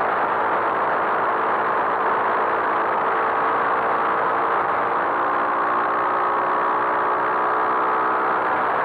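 Skyteam Monkey 125's single-cylinder four-stroke engine running at a steady pitch while riding, under a constant rush of wind and road noise.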